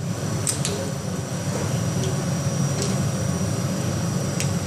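Steady low machine hum in a machine shop, with three short sharp clicks spread through it.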